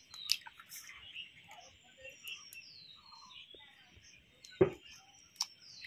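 Eggs cracked against the rim of a stainless steel bowl: a few sharp knocks, the loudest about three-quarters of the way through. Birds chirp in the background.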